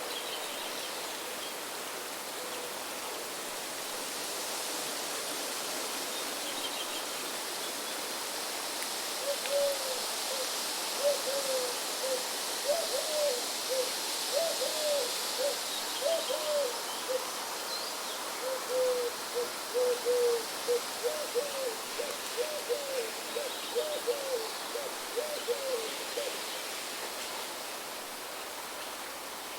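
A bird giving a long run of short, low hooting notes, about one or two a second, starting some nine seconds in and stopping a few seconds before the end, over a steady rushing hiss like running water. A few faint high chirps sound early on.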